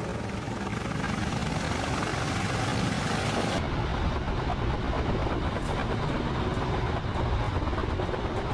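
Steady, dense rumbling noise like a vehicle or aircraft engine. A hissing layer over it cuts off abruptly about three and a half seconds in, while the rumble carries on.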